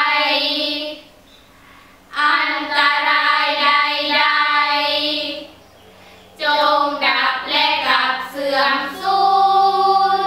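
A group of girls chanting sarabhanya, the melodic Thai Buddhist recitation, in unison. They sing in drawn-out phrases with two short pauses between them, the last phrase ending on a long held note.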